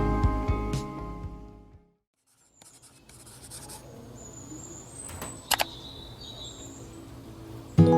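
Guitar background music fades out, and after a moment of silence comes a quiet stretch of soft scratching and rustling. Two sharp clicks come close together about five and a half seconds in, along with a few faint high chirps. The music comes back in near the end.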